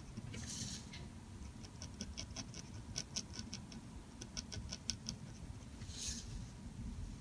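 Steel G-nib dip pen scratching over paper in quick hatching strokes, a faint rapid run of fine ticks coming in bursts of several a second. Two short rustles of the paper sheet being moved, under a second in and about six seconds in.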